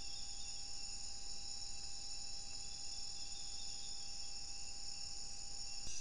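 Night insect chorus of the rainforest: crickets and other insects trilling steadily at a high pitch in many overlapping layers, over a steady lower tone. Just before the end there is a brief click, and the chorus changes suddenly.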